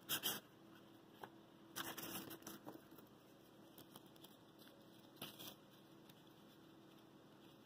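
Handling noise: short rustling, crinkling bursts, one right at the start, a longer stretch about two seconds in and another about five seconds in, over a faint steady hum.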